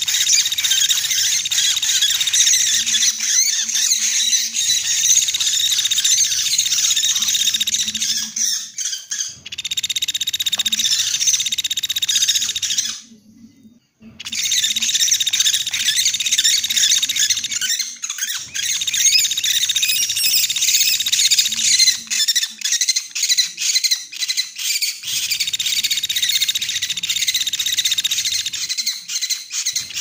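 Pelatuk beras bird lure call: dense, rapid, high-pitched chirping that runs almost without a break. It cuts out for about a second midway, then picks up again.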